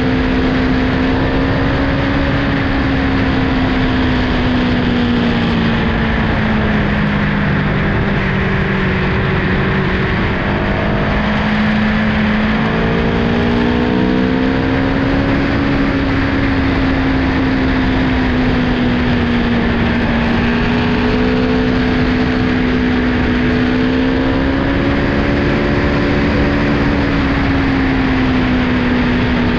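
Aprilia Tuono V4 1100 Factory's V4 engine running at road speed under heavy wind noise. The engine note falls slowly, dips and breaks briefly about ten seconds in, then climbs again and holds with gentle rises and falls.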